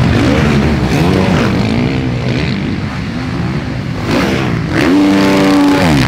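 Motocross race bikes revving hard on the track, engine pitch rising and falling with throttle and gear changes as several bikes go by. About five seconds in, one engine holds a steady high note for about a second, then drops.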